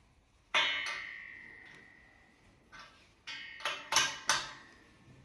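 A sharp metal clang about half a second in, ringing on with a clear tone as it dies away, followed a couple of seconds later by a run of quicker metallic knocks and clinks: a wrench and fittings striking the metal frame tubes of a pull-up station during assembly.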